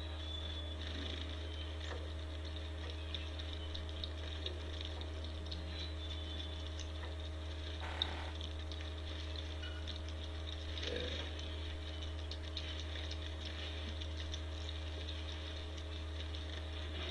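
Steady low electrical hum under scattered light ticks, typical of wild turkeys pecking corn off snowy ground. A few faint high chirps, and one sharper click about eight seconds in.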